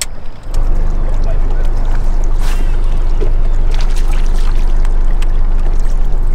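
Electric trolling motor running at a steady low hum that starts about half a second in. A brief hiss cuts across it about two and a half seconds in.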